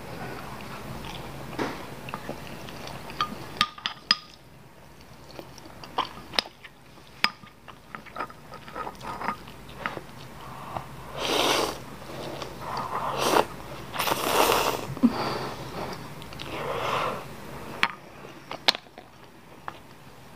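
Close-up eating of spicy instant noodles: chewing with scattered sharp clicks, then from about halfway through several loud slurps of noodles, each lasting about a second.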